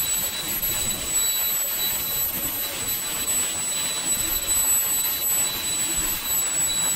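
Swiwin 300 model jet turbine running at a steady speed: a loud rushing noise with a high-pitched whine held at one pitch.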